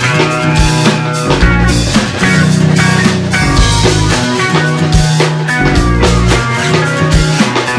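Rock band playing live: a drum kit with frequent cymbal and drum hits, over electric guitar and bass guitar.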